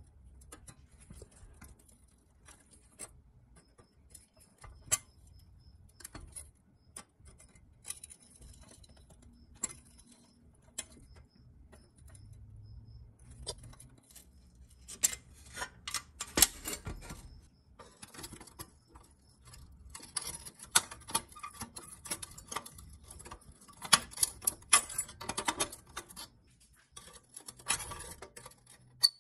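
Pliers clicking and scraping against the rusty pressed-steel frame of a 1957 Tonka toy truck. At first there are scattered sharp metallic clicks, and from about halfway on they come in busy clusters of clicking and scratching.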